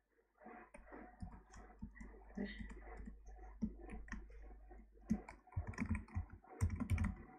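Typing on a computer keyboard: a run of irregular key clicks as a short word is deleted and typed again, with a quicker, louder flurry of keystrokes in the last couple of seconds.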